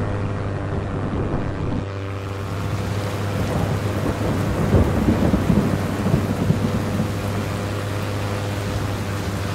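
Thunderstorm sound effect: steady heavy rain with rolling thunder, the thunder swelling louder about halfway through. The sound changes about two seconds in as a different rain recording takes over.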